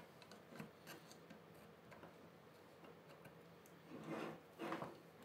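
Faint rubbing and light clicks of a Raspberry Pi circuit board being slid down into its enclosure by hand, with a couple of slightly louder scrapes about four seconds in.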